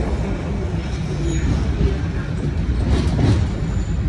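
Tram running along its rails, heard from on board: a steady low rumble, with a couple of faint, brief high squeals.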